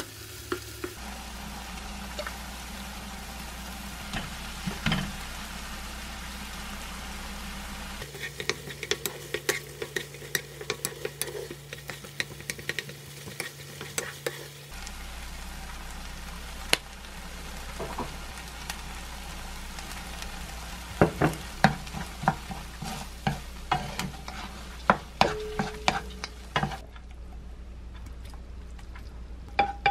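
Spatula scraping and stirring soft tofu, egg and shrimp in a nonstick frying pan as it sizzles over the heat, with many short scrapes and taps. Near the end the sizzle stops and sharper knocks come as the food is scooped from the pan into a dish.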